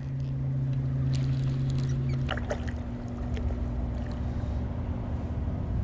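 Steady low mechanical hum over a low rumble; one tone in it drops out a little over two seconds in while a higher tone carries on.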